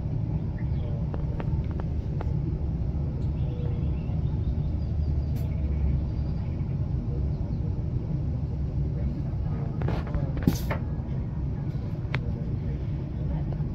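Steady low rumble of a passenger train running, heard from inside the carriage as it moves away from a station stop, with scattered light clicks and one sharp knock about ten seconds in.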